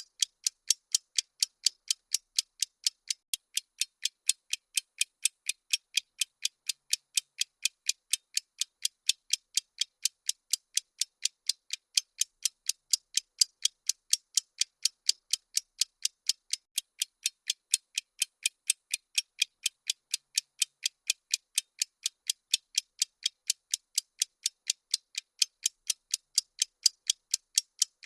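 Ticking sound effect of a bomb countdown timer: sharp, evenly spaced ticks, a little over two a second, high and thin with no low end.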